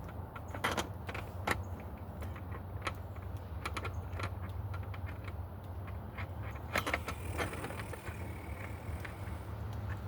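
Scattered small metallic clicks and rattles of screws and mounting hardware being handled while a light fixture is fitted to its bracket, over a steady low hum.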